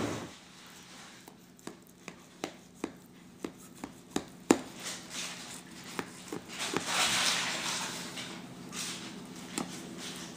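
Kitchen knife cutting through a baked pasticho (Venezuelan lasagna) in its baking pan: a run of short, light knocks, about three a second, followed a few seconds later by a stretch of softer scraping noise as the blade works through the cheese crust.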